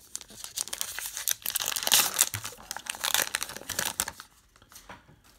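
Plastic Topps Heritage card-pack wrapper crinkling and tearing as the pack is opened and the cards slid out, a dense crackle lasting about three and a half seconds before it dies down near the end.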